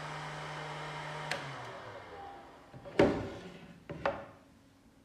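Electric heat gun running steadily; about a second in there is a click and its fan winds down, the pitch falling over the next couple of seconds. A loud knock about three seconds in and two lighter knocks a second later come from the heat gun and the 3D-printed plastic housing being handled.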